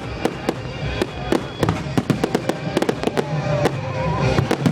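Fireworks going off: a rapid string of sharp bangs and crackles, several every second.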